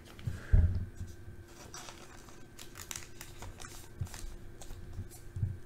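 A trading card in a plastic sleeve handled and turned over by hand, giving short crinkly rustles and light clicks. A dull thump about half a second in is the loudest sound, and a smaller one comes near the end.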